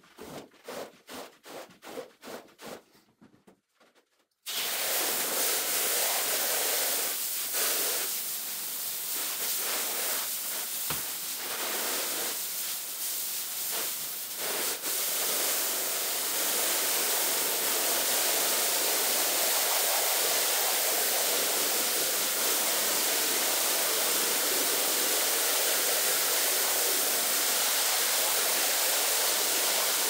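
Water spraying hard from a pressure washer onto a wet carpet: a loud, steady hiss that starts suddenly about four and a half seconds in. Before it comes a quick run of even rubbing strokes, about four a second, then a short pause.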